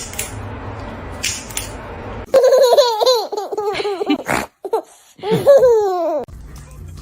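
High-pitched, hearty laughter in two loud bursts of falling peals. It starts a little over two seconds in, after a stretch of low background noise with a few clicks.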